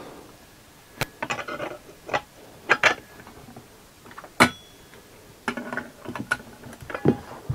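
Scattered metal clicks and short clattering rattles from a socket ratchet and the differential housing being handled, as the pinion flange nut is tightened to take up the bearing end float. A sharper single knock comes about four and a half seconds in.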